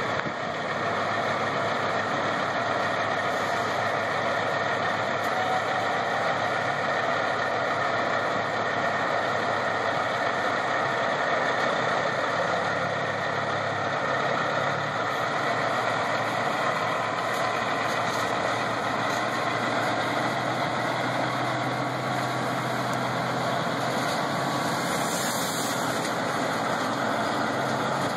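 Diesel semi truck engines idling steadily, a continuous low running sound.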